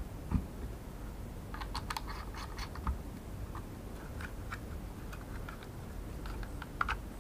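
Hard plastic clicks and taps from a DJI Mavic Air remote controller being handled and its fold-out phone grips moved. The clicks come in a quick cluster a couple of seconds in and again near the end, with a soft knock about half a second in.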